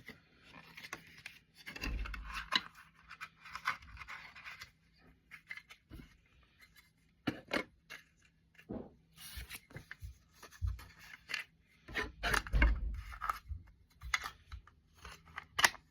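Cassette tapes and their packaging being handled: rustling and scraping between about one and four and a half seconds in, then scattered sharp plastic clicks and knocks, with a couple of low thumps.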